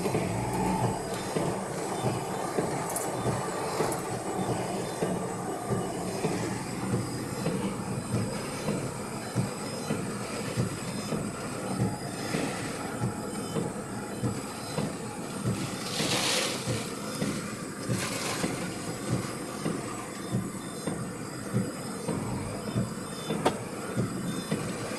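Strong typhoon wind gusting through an apple orchard, a continuous rushing with irregular buffeting thumps on the microphone. A stronger gust surges about 16 seconds in.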